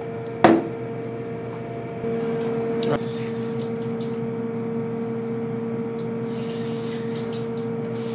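Water running at a commercial kitchen sink with a pre-rinse spray faucet while dishes are washed. A steady humming flow comes up about two seconds in, with a click near three seconds and a brighter hiss of spray later on.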